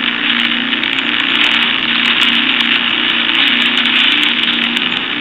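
Spirit box app sweeping through radio stations: loud, steady radio static hiss with a wavering buzz underneath and scattered clicks.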